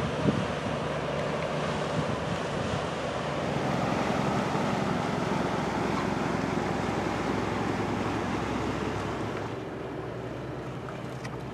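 Wind buffeting the microphone over open water, with the low steady hum of a passenger boat's engine underneath. The sound drops somewhat quieter near the end.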